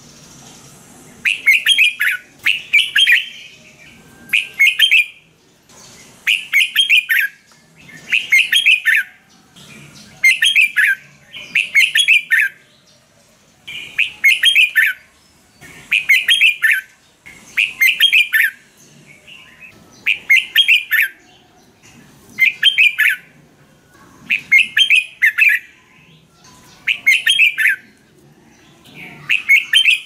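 Red-whiskered bulbul singing: short, loud whistled phrases of several quick notes, each ending on a falling note, repeated about every two seconds after a brief quiet start.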